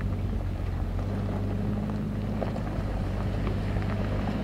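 Off-road vehicle engine running at a low, steady speed, with wind buffeting the microphone.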